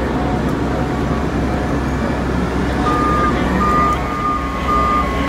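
A fire truck's diesel engine running steadily, with an electronic warning beeper starting about three seconds in and sounding about three times every two seconds.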